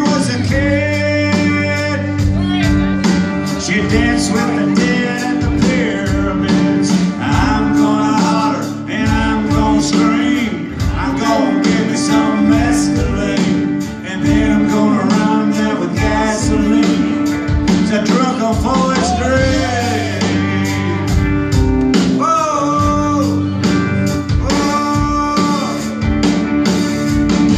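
Live band playing a song: a man singing over guitar and a drum kit with a steady beat.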